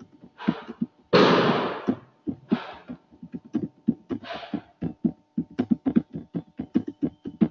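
Typing on a computer keyboard: a quick run of key clicks, thickest in the second half. A few short breathy hisses come in between, the loudest about a second in.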